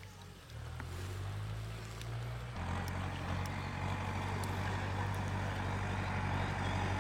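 A motor engine running steadily with a low hum, getting louder about two and a half seconds in.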